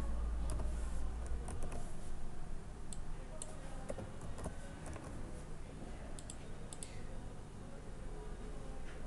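Computer keyboard being typed on in short, irregular runs of key clicks over a low steady hum. The clicks thin out after about seven seconds.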